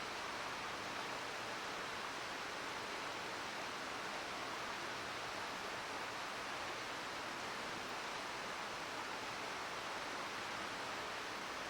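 Mountain stream babbling with a steady, even rush of water; no separate crackles or pops stand out.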